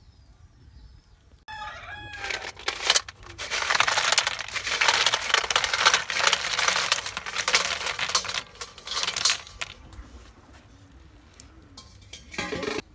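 A heap of snails in their shells tipped from a steel pan into a steel pan of water, a long clattering, splashing rush of shells lasting several seconds. Just before it a rooster crows, and a short clatter comes near the end.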